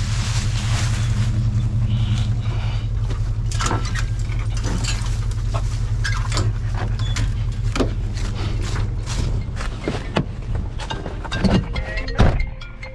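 Nissan pickup's engine idling steadily, with metal clicks and clanks from the latches and barred gates of a dog box as beagles are shut in, and a few dog sounds among them. A couple of heavy thumps near the end, the truck's cab door closing.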